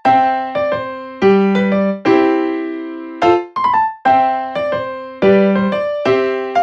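Background music: a light keyboard tune of struck chords and short melodic notes that ring and fade, repeating in a loop.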